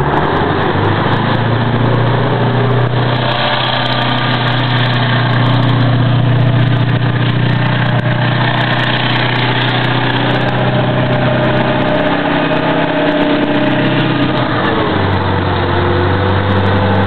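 Engine of a Warrior tracked armoured vehicle running with a steady low drone, its pitch dropping about fifteen seconds in.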